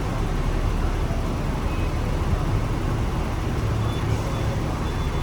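Hong Kong double-decker tram under way, a steady low rumble from its running gear and motors with an even wash of noise over it.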